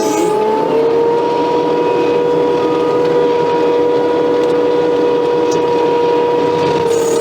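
Case skid steer running a hydraulic stump grinder attachment at high speed, a steady whine over machine noise. Its pitch sags briefly at the start as the grinder takes a load, then recovers and holds level.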